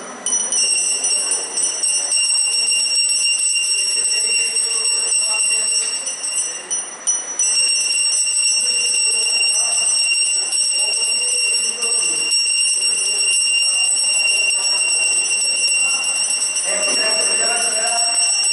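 A puja bell rung without a break during the Durga Puja worship, its bright ringing holding steady apart from a short lull about six or seven seconds in, over a murmur of voices.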